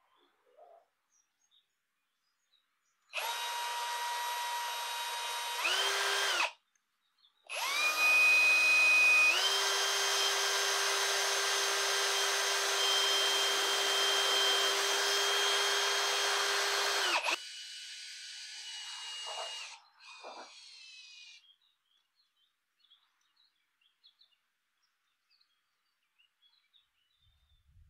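Electric drill running in two bursts: a short one about three seconds in, then a longer one that jumps up in speed shortly after starting and holds a steady whine for about eight seconds. It then winds down with a fading whine. Faint birdsong is heard in the quiet stretches.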